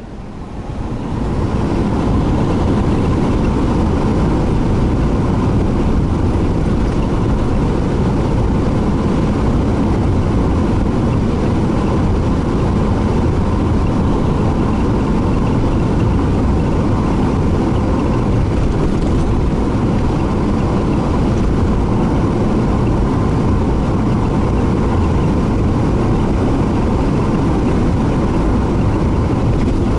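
Car driving steadily on an asphalt road, heard from inside the cabin: a constant rumble of engine, tyres and wind. It swells up to full level over the first couple of seconds.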